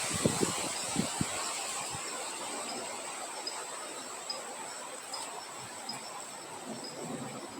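Steady outdoor wind noise with a continuous high insect trill and a faint chirp repeating about once a second. Low gusty buffets in the first second or so die away.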